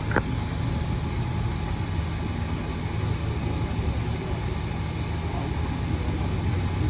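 Steady low rumble of an idling engine, with one sharp knock just after the start.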